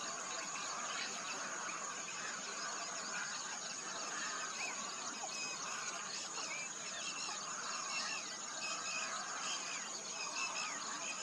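Many small birds chirping and twittering at once in a dense chorus, over a steady high-pitched buzz.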